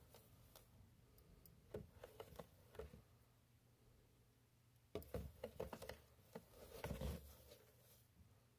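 Faint clicking and rustling of feeding tongs picking mealworms out of their bedding and dropping them into a plastic cup. The sounds come in two short clusters, a second cluster a few seconds after the first.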